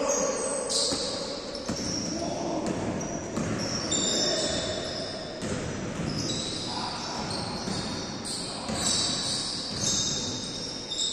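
Indoor basketball game in a large echoing gym: the ball bouncing on the court, short high-pitched sneaker squeaks coming and going throughout, and players' distant voices.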